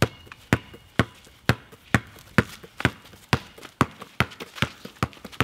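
Basketball being dribbled on hard ground: a steady run of sharp bounces, about two a second.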